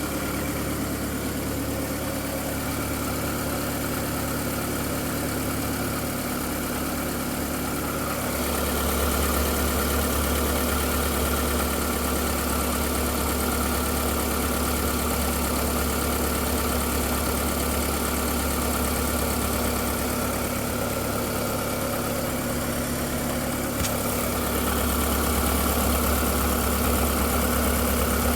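Volkswagen Golf IV 1.6 16v petrol four-cylinder engine idling steadily; the low hum grows louder about a third of the way in and again near the end. The owner reports a whistle after starting, and then a clack-clack that he places inside the engine on the timing side.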